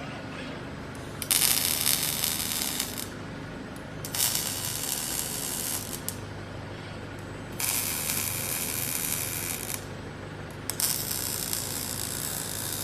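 Robotic arc welding on a bed frame: four short welds of about two seconds each, each a hard crackling hiss that starts and stops abruptly, with a steady machine hum in the gaps.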